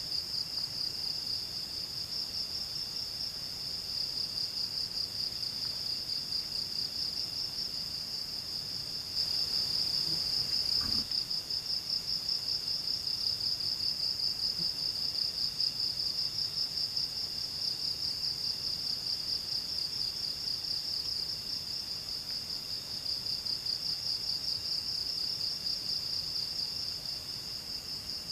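Insects, crickets or similar, calling in a continuous high, fast-pulsing trill, with fainter trills from other insects starting and stopping beneath it.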